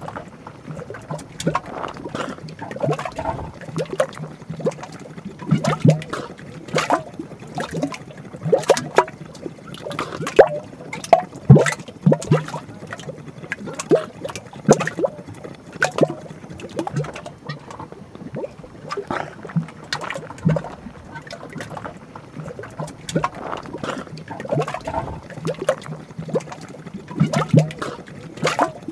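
A mud volcano gurgling and popping as gas bubbles burst irregularly through watery mud inside its small crater, with a few louder pops about midway.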